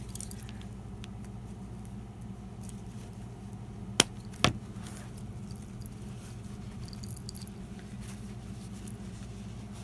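Two sharp clicks from a pair of scissors about half a second apart, over a steady low hum.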